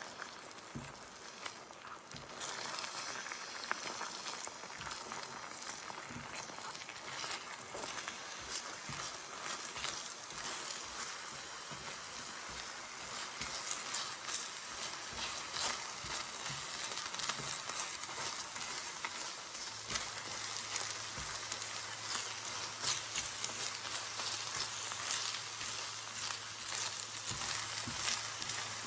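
Food frying in a pan, a steady sizzle with many small crackles, growing louder about two seconds in.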